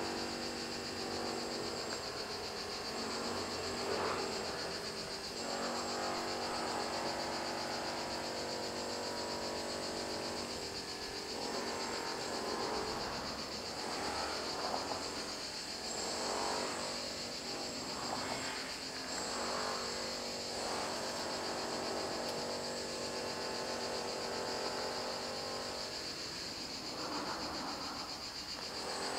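Cicadas buzzing in a steady, high, unbroken chorus. Underneath, a low humming tone comes and goes.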